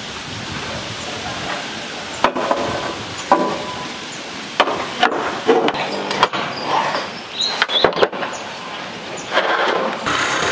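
A series of irregular knocks and clatters, starting about two seconds in, from corrugated roof sheets being handled and fitted onto a steel roof frame.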